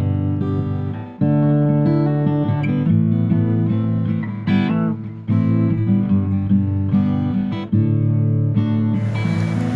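Acoustic guitar music: strummed chords that change every second or so, with a few short dips between phrases. Near the end a steady hiss comes in underneath.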